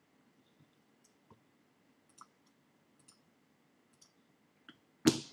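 Computer mouse clicking, faint single clicks about once a second, then one much louder sharp knock near the end.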